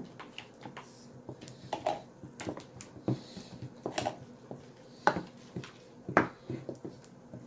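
Wooden spoon stirring a slime mixture in a bowl: irregular knocks and scrapes of the spoon against the bowl, the loudest a little after six seconds in.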